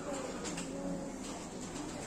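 Faint murmur of voices in the background, with a few light clicks.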